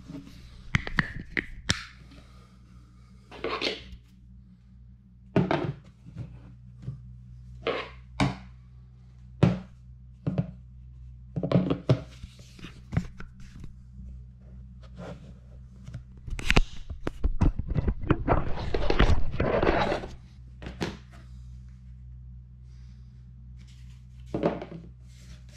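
Hollow plastic stool legs being knocked, pressed and twisted into the sockets of a plastic seat: a series of knocks and clicks, with a longer stretch of plastic scraping and rubbing about two thirds of the way through. A steady low hum lies underneath.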